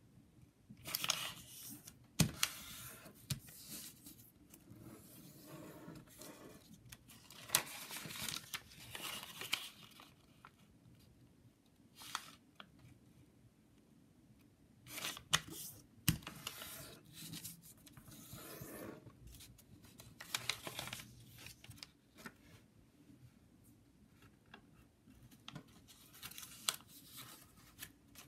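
Origami paper being folded and creased by hand: irregular bursts of paper rustling, with a few sharp clicks as folds are pressed flat.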